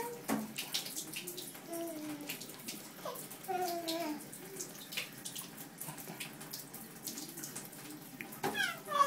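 A toddler's wordless vocal sounds: a few drawn-out calls that fall in pitch, one near the end. Under them is a steady hiss of water in a bathtub.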